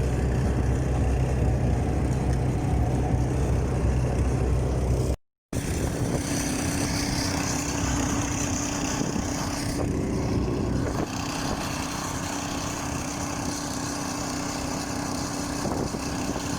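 Engine of a small motor vehicle running steadily while towing a trailer, with a low rumbling drone. The sound breaks off for a moment about five seconds in and resumes as a steady hum with a held tone, a little quieter from about eleven seconds in.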